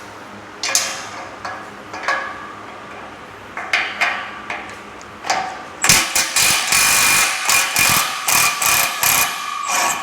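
A few separate metal knocks and clicks, then, a little past halfway, an impact wrench hammering in several short bursts as it loosens a galvanized nut and bolt on a steel power rack.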